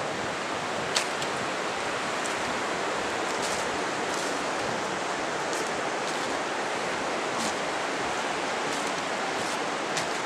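Steady rushing of flowing creek water, with a few faint clicks.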